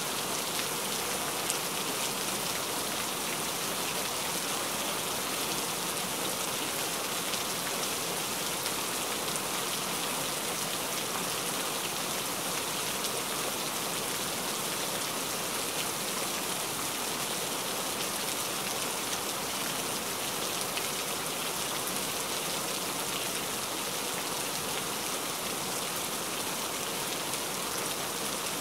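Heavy rain falling steadily: a dense, even hiss of rainfall with many small drop ticks through it.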